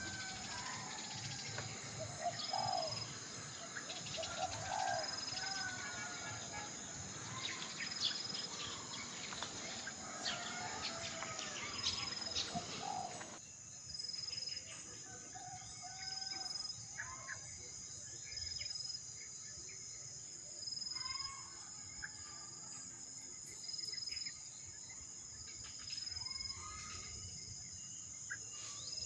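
Yellow-vented bulbuls chirping and calling at the nest, over a steady high insect trill. About halfway through, the background noise drops, and after that short call phrases come every two or three seconds.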